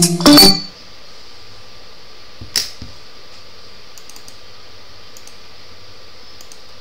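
A short tune of distinct notes cuts off about half a second in. Then there is steady background hiss, with one sharp computer-mouse click about two and a half seconds in and a few faint clicks later.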